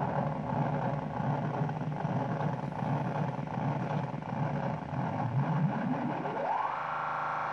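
Korg Monotron Delay synthesizer, modded into a Eurorack module, playing a noisy drone with a low tone that wobbles up and down. About six seconds in, a tone sweeps up in pitch and settles into a steady high tone.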